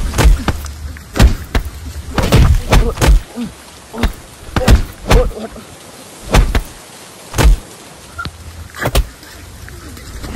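Blows and kicks landing in a scuffle: about a dozen sharp thuds at irregular intervals, some in quick pairs.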